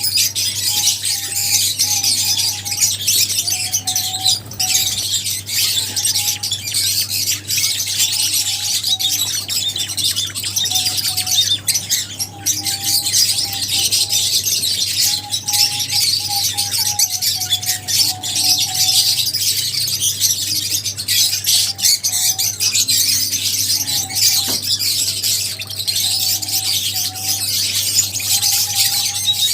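A colony of lovebirds chattering and chirping continuously in a dense mass of shrill, overlapping calls. Short lower whistled notes recur through it over a steady low hum.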